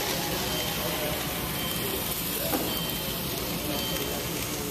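Steady background noise of a busy show hall, with a brief faint voice about halfway through.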